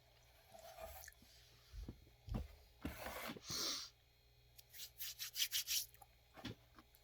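Rubbing and scraping handling noises with a few soft knocks, then a quick run of about eight scratchy strokes about five seconds in.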